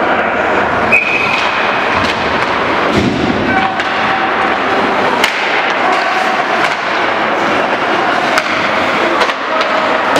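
Ice hockey play in an indoor rink: skate blades scraping the ice over a steady din, with sharp clacks and knocks of sticks, puck and boards scattered throughout.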